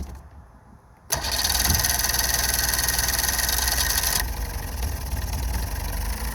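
Outboard motor starting on its first run after a tune-up with new spark plugs: it catches suddenly about a second in and runs fast and loud, then settles to a lower, steady idle about four seconds in.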